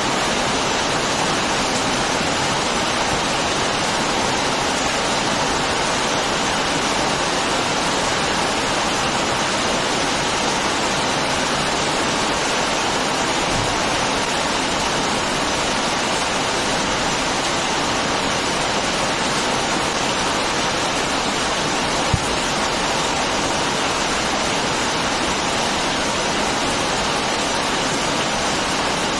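Heavy rain falling steadily, a dense even hiss with no let-up. A single sharp knock sounds about three quarters of the way through.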